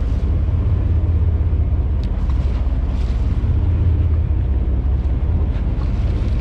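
Steady low rumble of a charter fishing boat at sea, with light wind on the microphone and a faint click about two seconds in.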